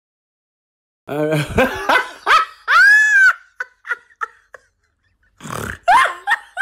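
Exaggerated wordless vocal cries: after about a second of silence, a run of yelps and one long cry that rises and falls in pitch, then a few short yelps and, after a pause, more cries near the end.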